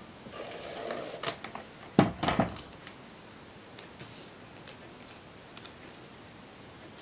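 A handheld adhesive tape runner pressed and drawn along a cardstock strip, with a few sharp clicks, then a louder clatter about two seconds in. After it come faint paper handling and a few light ticks.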